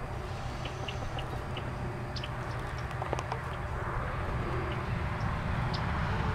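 Outdoor paddock ambience: a steady low rumble, typical of wind on the microphone, with scattered short faint ticks and chirps. No clear horse or mule call stands out.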